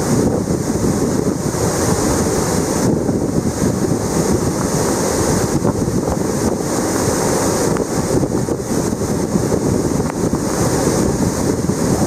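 Steady loud rush of a tall waterfall plunging into its rock pool and whitewater churning over the boulders, with wind gusting on the microphone.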